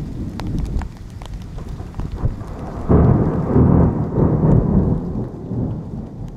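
Thunder rumbling through heavy rain. A louder roll of thunder starts about three seconds in and slowly dies away, while raindrops tick sharply throughout.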